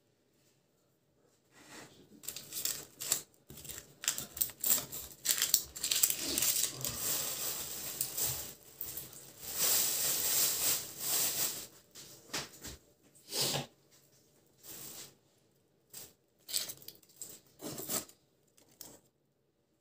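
Plastic bag rustling and crinkling as onions are taken out of it, with irregular knocks and clicks of onions set down on a wooden cutting board. The crinkling is densest in the middle, and scattered knocks follow.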